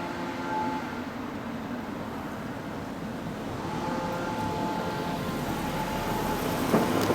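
Engine of a small passenger ferry running as it comes in to the quay, a steady rumble with a faint whine that fades and returns, growing a little louder; a short knock near the end.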